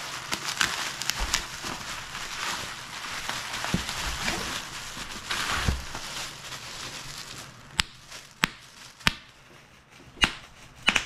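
Plastic packaging crackling and rustling as a box is cut open with a knife and unwrapped. Then about five sharp pops, a little over half a second to a second apart: bubble wrap being popped by hand.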